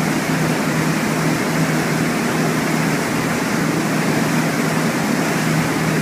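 Boat engine running steadily: a constant low hum under an even hiss.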